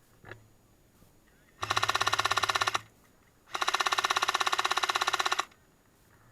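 Airsoft electric M60 support gun firing two long full-auto bursts, the second longer, each a fast, even rattle of shots with the gearbox's whine.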